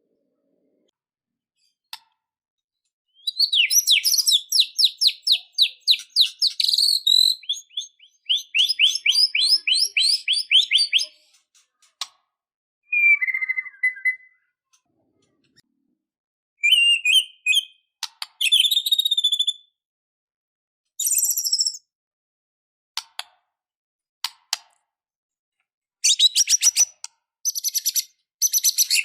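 White-rumped shama (murai batu) singing in separate phrases: long runs of fast, rattling high notes, a short lower whistle, a few sharp clicks, and another rapid run of notes near the end, with silent gaps in between.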